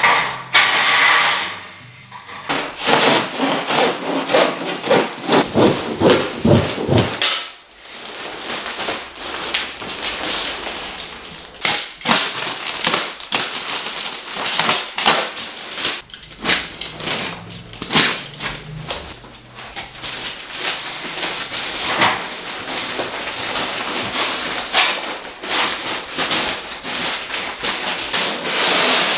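Building work on a stud wall: tools and materials knocking irregularly, with scraping and rubbing in between.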